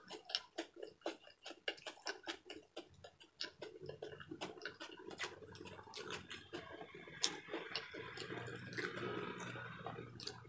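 Close-up eating sounds: rapid wet clicks and smacks of chewing pork and chicken adobo with rice, several a second. A faint steady hum builds under them in the second half.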